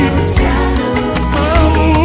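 Gospel band music: electric guitar, keyboards and drums playing together with a steady beat.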